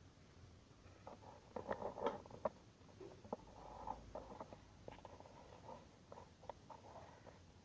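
Faint handling noises on a workbench: scattered light clicks, taps and rustles, busiest about two seconds in and again through the middle.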